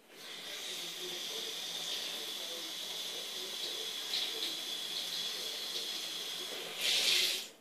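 Tap running into a sink with a steady hiss, getting louder briefly near the end and then stopping suddenly as it is turned off.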